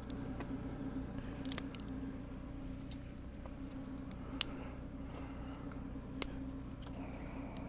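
Steady low mechanical hum of running machinery, with a few faint sharp clicks scattered through it.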